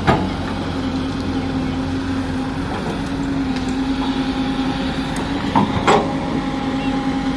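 Hyundai crawler excavator's diesel engine running steadily under work, with a sharp knock right at the start and two more close together about six seconds in as the bucket digs into the soil.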